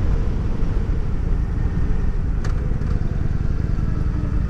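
Kawasaki Vulcan 900's V-twin engine running as the motorcycle rides along, under heavy wind rumble on the bike-mounted camera's microphone. The engine note drops lower near the end, and there is a sharp click about two and a half seconds in.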